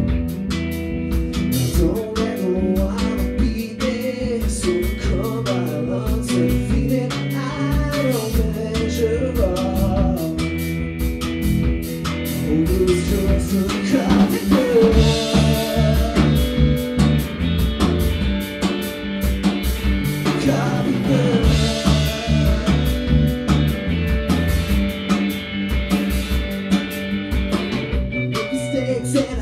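A band playing a song: guitar and a drum kit keeping a steady beat, with a voice singing over them and cymbals washing louder at two points midway.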